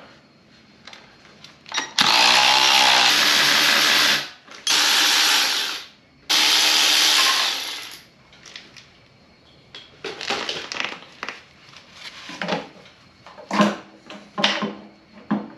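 Cordless electric ratchet running in three bursts of about two seconds each, spinning out the 10 mm oil pan bolts. These are followed by scattered light clicks and knocks of hand work on the pan.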